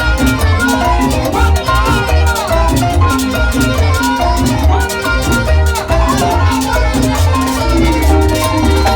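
Loud Latin dance band music with a driving bass pulse, pitched melodic lines and busy shaker and hand percussion.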